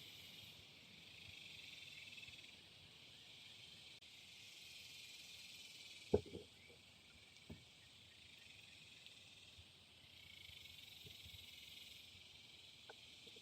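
Faint insect chorus, a high steady chirring that swells and fades in slow waves. A sharp knock comes about six seconds in and a smaller one a second and a half later.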